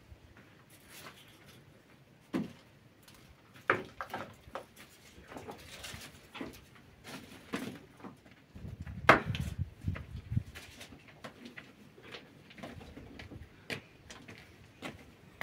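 Irregular knocks and clicks of things being handled, with a low rumble for a couple of seconds around the middle, where the loudest knock falls.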